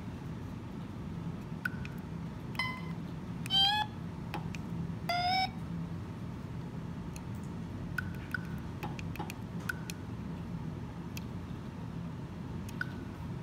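Small plastic slide switches on an FPGA board clicking as they are flipped, with a few short pitched notes from a small speaker played by the MIDI pad; the two notes about three and a half and five seconds in are the loudest, the one near four seconds bending in pitch.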